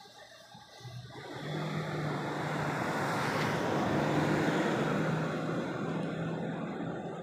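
A motor vehicle driving past: its engine note and road noise swell from about a second in, are loudest around four seconds, and fade away near the end.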